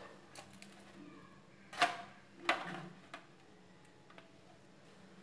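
Two short knocks of metal kitchenware, close together, with a few lighter clicks, over a faint steady hum.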